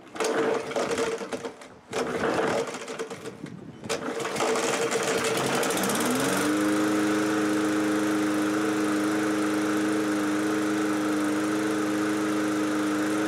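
Push lawn mower's small four-stroke engine being pull-started after priming: a couple of tugs on the recoil starter, then it catches about four seconds in. It rises in pitch and settles into a steady run about six seconds in.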